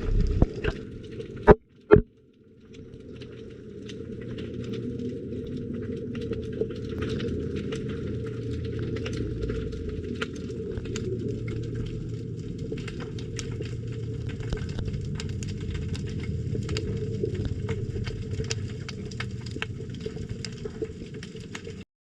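Underwater sound picked up by a submerged camera at a harbour quay: a steady, muffled water rumble with scattered sharp clicks and crackles, after two loud knocks about a second and a half and two seconds in. The sound cuts off suddenly near the end.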